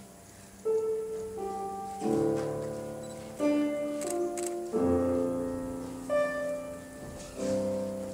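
Slow classical piano music: a new chord or phrase struck about every second and a half, each left to ring and fade, with two faint clicks about four seconds in.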